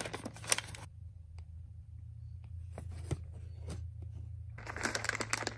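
Kraft paper snack pouch being torn open and handled, with a few sharp paper crackles in the first second. A burst of crinkling rustle comes near the end, over a steady low hum.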